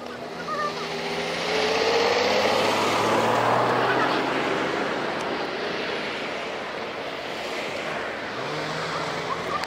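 A vehicle passes close by. Its noise swells over about two seconds, holds, then fades away over the next few seconds.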